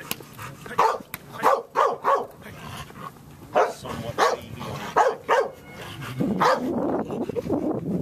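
A dog barking: about nine short single barks in small groups over the first six seconds or so, followed by a denser, rougher sound that carries on to the end.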